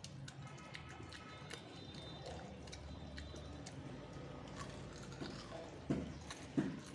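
Someone chewing raw potato: a run of small wet clicks and crunches, with two louder crunches near the end.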